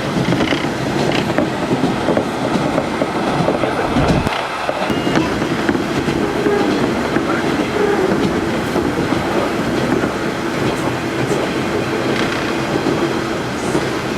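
KiHa 47 diesel railcar running along the line, with a steady engine drone and wheels rumbling on the rails, and a brief low thud about four seconds in.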